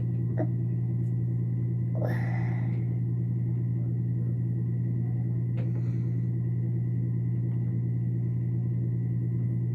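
A steady low hum, as from a running motor or fan, with a few brief soft noises on top, the longest about two seconds in.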